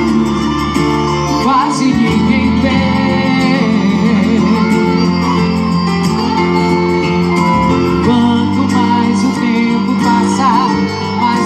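Song with a singing voice played loud through a sound-system speaker box with 15-inch Tornado woofers, heavy in the bass.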